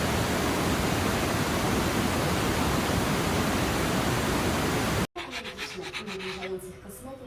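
A loud, even hiss of noise, like static, that stops abruptly about five seconds in. Music follows to the end.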